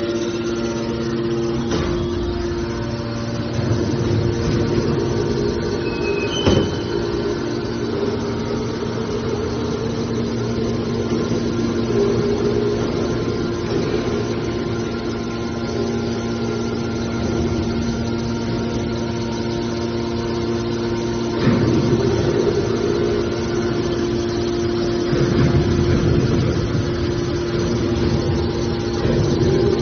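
Hydraulic metal shear baler's power unit running with a steady hum, with a few sharp metallic knocks and a rougher swell near the end as the machine works.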